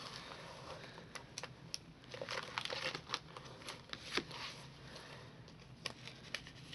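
Plastic sleeve pages of a photocard binder crinkling and rustling as they are handled, with scattered light clicks, busiest about two to three seconds in.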